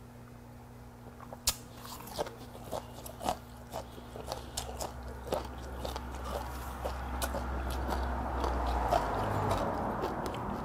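Close-up mouth sounds of a person chewing and crunching a leaf wrap, with many irregular sharp clicks starting about a second and a half in. Later a spoon scrapes and clinks in an earthenware pot of hot stew, with a rising hiss from about the middle.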